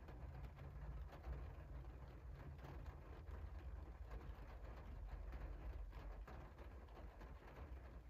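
Light rain falling on a window pane, individual drops ticking on the glass over a steady low rumble.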